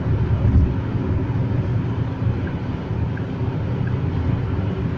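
Geely Atlas SUV on the move: a steady low rumble of road and engine noise.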